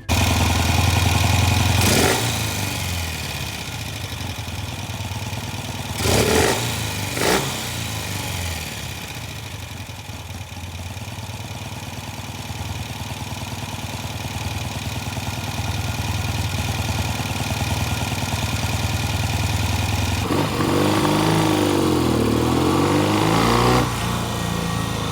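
Classic British motorcycle's twin-cylinder engine idling, blipped about two seconds in and twice more around six to seven seconds, then revved up and down for a few seconds near the end. It cuts off really quickly when the throttle is opened, which the owner puts down to the magneto losing spark at higher revs, leaving the engine misfiring on one cylinder.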